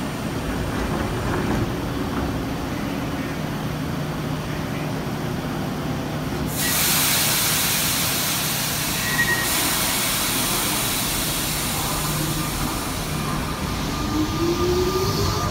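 Tokyo Metro Ginza Line 01-series subway train standing at the platform with a steady low hum. About six and a half seconds in, a loud hiss of air starts and runs on. Near the end the train pulls away with a motor whine rising in pitch.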